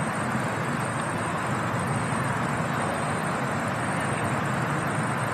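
Steady, even rushing background noise outdoors, with no distinct events.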